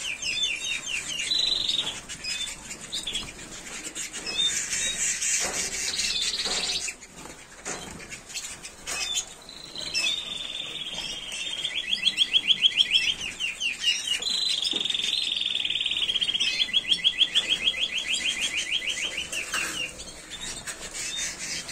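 Timbrado Español canaries singing: long, very fast rolling trills, given in several phrases of a few seconds each with short breaks between them.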